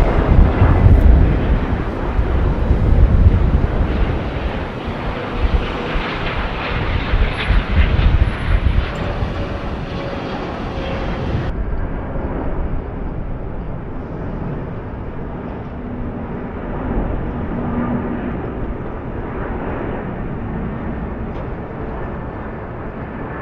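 Airbus A350 airliner's Rolls-Royce Trent XWB jet engines rumbling as the aircraft passes, loudest in the first few seconds and then fading. About halfway through, the sound changes abruptly to a duller, quieter, steady jet rumble.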